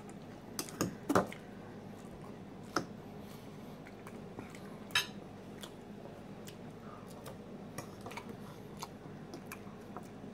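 A few light clicks of a fork against a dinner plate over a quiet background, the loudest about a second in and another about five seconds in.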